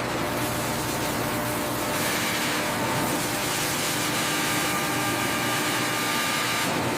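Steady factory machinery noise: an even hiss with faint humming tones layered in, cutting off abruptly at the end.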